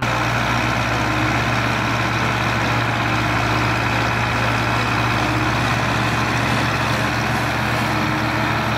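Diesel engines of two Ursus tractors running loud and steady at constant revs while the tractors pull against each other, chained together in a tug of war.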